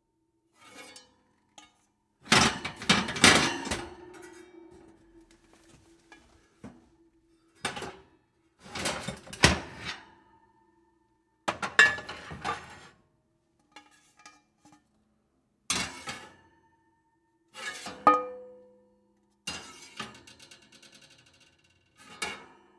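Metal oven pans being handled, clattering and clanging in about nine separate bursts of knocks. The loudest burst comes early, and several leave a short metallic ring.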